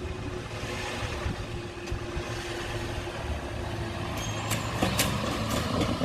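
Level crossing barrier mechanism running with a steady hum as the barrier booms rise, stopping about four seconds in once they are fully up, followed by a few sharp clicks. A car engine pulls away across the crossing near the end.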